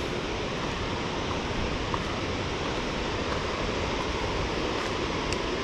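Steady rushing of falling water, an even roar with no break.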